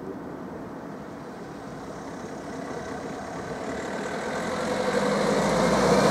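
A car approaching along the road, its engine and tyre noise growing steadily louder as it comes close and passes.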